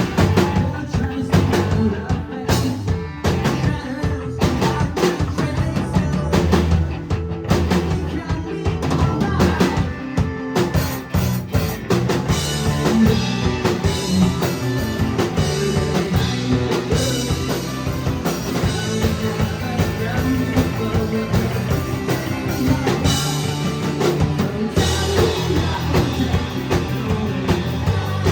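A rock band playing live, with a full drum kit driving a steady beat under the rest of the band.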